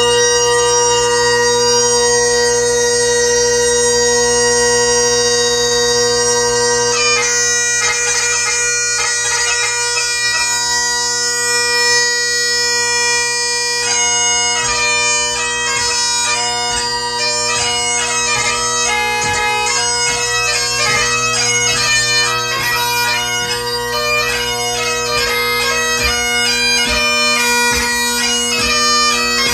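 Great Highland bagpipe played solo: the drones sound steadily under the chanter. A single chanter note is held for about the first seven seconds, then the melody begins, growing busy with rapid ornamented notes from about halfway through.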